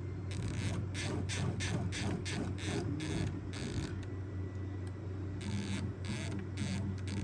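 CNC router's stepper-driven axes jogged from a hand controller in a quick series of short moves, about three a second, pausing in the middle. A steady low hum runs underneath.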